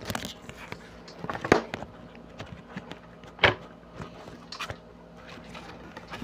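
Handling noise from a motorcycle helmet being turned over and inspected: scattered light clicks and knocks, with two sharper knocks about a second and a half and three and a half seconds in.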